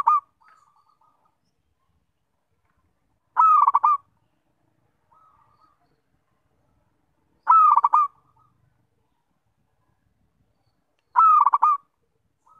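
Zebra dove (perkutut) cooing: short phrases of rapid staccato notes, one ending just as the sound begins and three more about four seconds apart, each followed by a few fainter notes.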